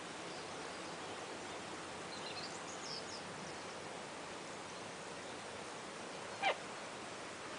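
Steady hiss of falling rain, with a few faint high chirps a couple of seconds in and one brief, sharp call gliding downward in pitch near the end.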